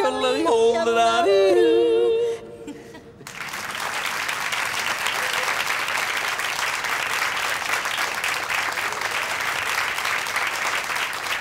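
A voice yodeling, jumping quickly between low and high notes, ends about two seconds in. After a short pause, an audience claps steadily.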